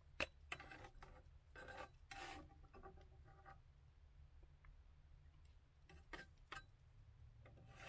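Faint scraping of a spatula against a square nonstick frying pan as an omelet is lifted out, with a sharp tap just after the start, rubbing strokes over the next two seconds or so, and a few light clicks near the end.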